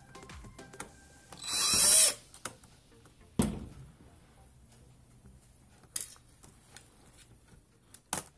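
Cordless drill-driver backing out small laptop keyboard screws: a loud whirring burst just before two seconds in, then a single knock and a few light clicks as parts are handled.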